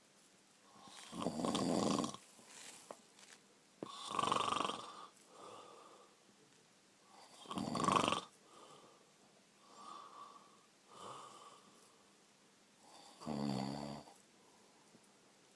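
A person snoring in irregular loud snores, four strong ones with fainter breaths between them. The last carries a low rattling pitch. This is snoring of the kind the uploader links with sleep apnea.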